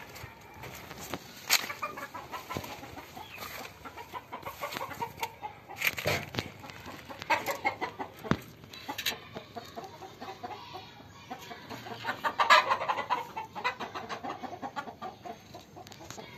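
Chickens clucking again and again, mixed with a few sharp knocks and rustles, loudest about twelve seconds in.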